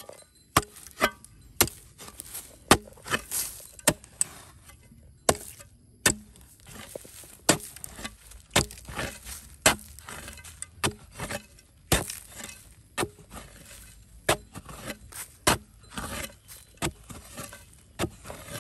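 A narrow-bladed digging tool being jabbed into dry, crumbly soil, digging out a small planting hole. Sharp strikes with gritty scrapes come irregularly, about one or two a second.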